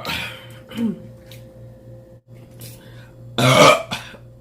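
A person burping: one loud belch about three and a half seconds in, lasting about half a second. The tail of a previous burp fades out at the start.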